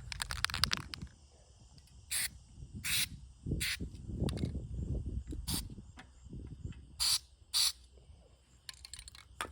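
Metal bucket-seat tracks being worked back and forth after greasing, with a rattle of clicks at the start and low rubbing and clunks through the middle, broken by about six short hisses that fit sprays of white lithium grease from an aerosol can. Insects chirp steadily in the background.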